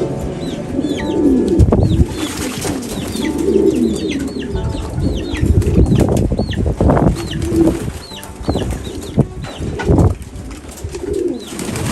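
Domestic pigeons cooing, with wings flapping and clapping now and then, and many short high chirps repeating throughout.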